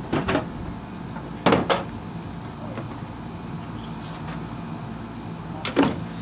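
Sharp knocks and clunks in three quick pairs, the loudest about a second and a half in, as a heavy vintage sewing machine and its case are handled on a wooden cabinet, over a steady low hum and faint insect chirring.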